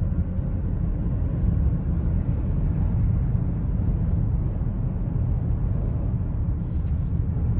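Car driving, a steady low rumble of road and wind noise, with a short hiss about seven seconds in.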